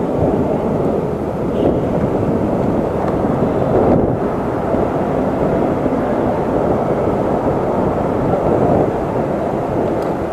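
Wind rushing over an action camera's microphone while riding an electric scooter: a loud, steady, low rushing noise with no engine note.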